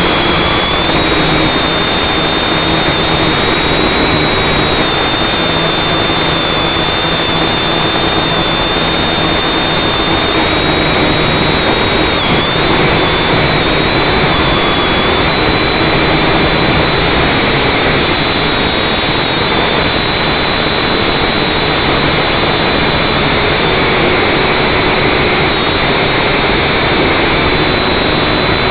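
Onboard audio of a battery-powered FPV drone in flight: the whine of its electric motors and propellers, with a high tone that drifts slightly in pitch, over a steady rushing noise.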